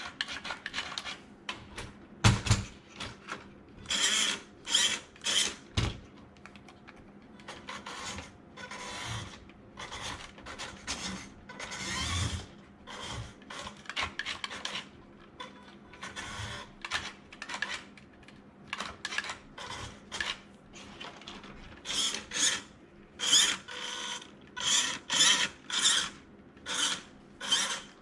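Small plastic and metal parts of a 1:12 scale RC crawler being handled and worked on by hand: irregular short scrapes, clicks and rattles, with a few sharp clicks.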